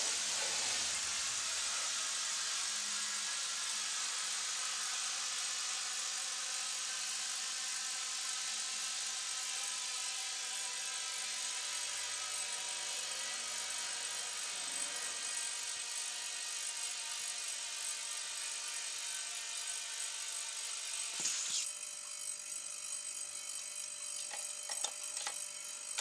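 Steady hiss of compressed air escaping, with a faint high whistle, slowly weakening. A couple of short clicks sound near the end.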